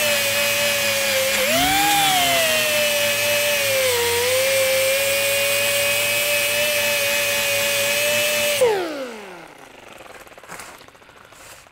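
Small right-angle grinder with a Roloc abrasive disc running a steady high whine as it grinds mill scale off quarter-inch steel plate. The pitch rises about two seconds in and dips around four seconds. About nine seconds in the tool is switched off and whines down to a stop, falling in pitch.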